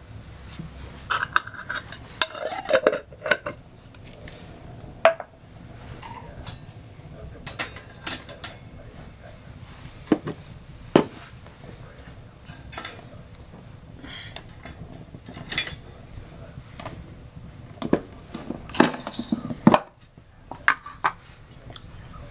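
Irregular metal clinks and knocks, clustering into clatter about a second in and again near the end, as a round wire grill grate is handled and set on top of a stainless-steel wood-gas camp stove. The burning stove's fire gives a low steady noise underneath.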